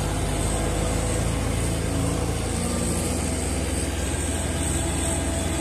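Caterpillar bulldozer's diesel engine running steadily as the dozer moves with a loaded blade of soil; the engine note shifts slightly about halfway through.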